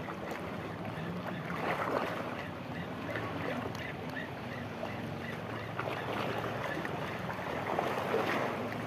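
Shallow seawater lapping and splashing against a rocky shore, with wind on the microphone and a faint steady low hum underneath.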